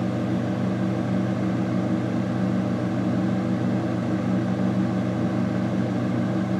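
Steady low hum of a running motor, with a constant buzzing drone that does not change.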